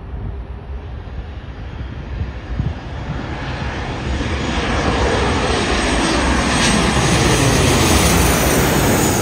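Boeing 737-800 jet airliner on landing approach, passing low overhead. Its CFM56-7B turbofan engines build from a distant rush to a loud peak near the end, with the pitch sliding downward as it goes by.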